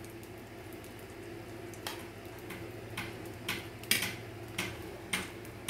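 Kitchen utensils click lightly against a dish as a vegetable filling is spooned onto bread: several short, irregular clicks from about two seconds in, over a low steady hum.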